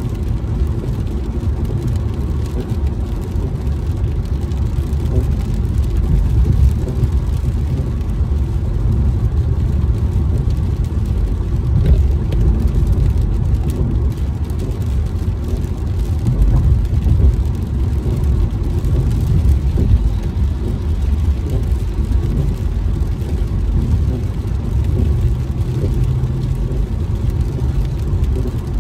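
Road noise heard inside a moving car's cabin on a wet freeway: a steady low rumble of tyres and engine that swells and eases slightly.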